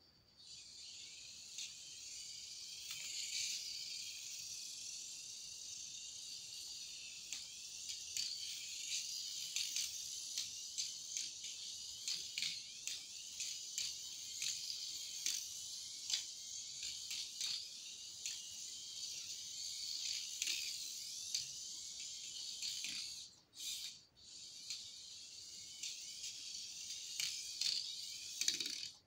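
Turbo Racing C75 1:76 micro RC car's tiny electric motor and drivetrain whining high-pitched as it drives laps, the pitch wavering with throttle, with many small clicks. The sound cuts out briefly twice near the end.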